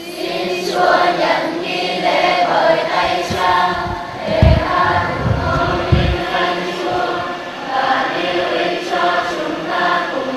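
A choir singing a church hymn, sustained voices together, with two low thuds about four and a half and six seconds in. It is the offertory hymn of the Mass.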